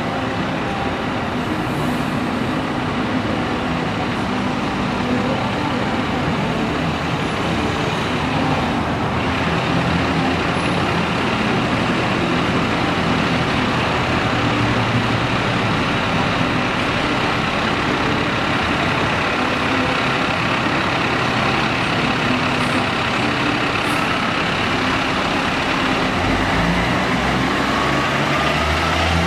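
Diesel engine of an old Sutphen fire engine running with a steady heavy rumble as the truck pulls out of the station bay, growing louder near the end as it drives away.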